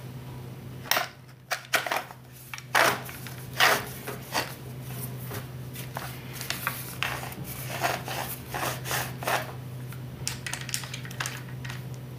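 Porter-Cable router being put back together by hand, its motor fitted into the base: a string of sharp clicks, knocks and scrapes of metal and plastic, loudest in the first few seconds and lighter after.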